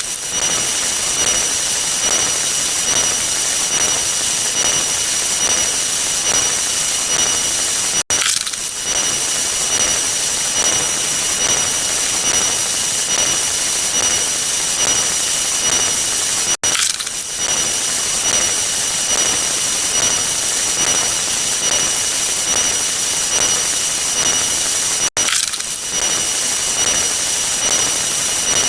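Stock bulldozer sound effect: a heavy engine running steadily as a loop that restarts about every eight and a half seconds, with a brief cutout at each restart.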